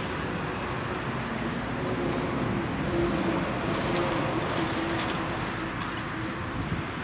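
Diesel engines of fire engines driving off, a steady engine drone with a low hum that is strongest a few seconds in and eases slightly toward the end.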